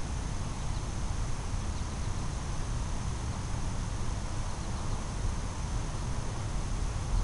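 Outdoor ambience: a steady low rumble of wind on the microphone, with a faint steady high insect drone and a few faint short chirps.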